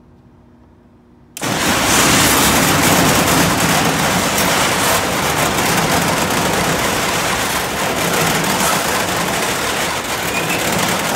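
A commercial rolling steel door's opener starts abruptly about a second in and runs steadily, the door rolling up with a loud continuous rattle. The door is making a test run to an upper limit that has just been reset higher.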